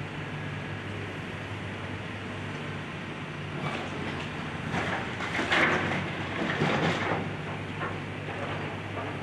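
Excavator's diesel engine running steadily. About halfway through comes a few seconds of irregular crunching and clattering as house debris is broken and moved, loudest a little past the middle.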